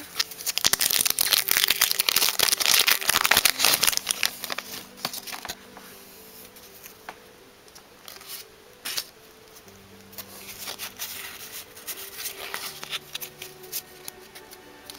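Foil Pokémon trading card booster pack being torn open, a loud dense crinkling and tearing for the first few seconds, then fainter rustling and handling. Quiet background music plays underneath.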